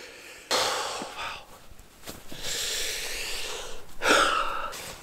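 Cloth rustling and breathing close to the microphone as a long-sleeve base-layer top is pulled off over the head, in three long swishing rushes.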